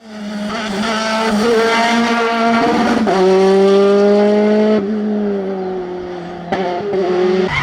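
Classic rally car engine at high revs on a tarmac stage. The pitch drops at a gear change about three seconds in, then the driver lifts off the throttle near five seconds and the note falls away, with a short sharp burst about a second later.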